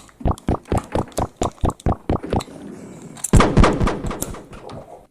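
A rapid string of sharp pops like machine-gun fire, about six a second for some two seconds, then one louder bang with a fading rumble about three seconds in.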